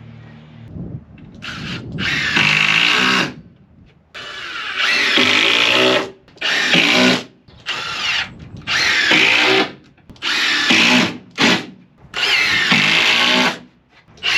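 Power drill running in repeated short runs of a second or two with brief pauses between them, starting about a second in.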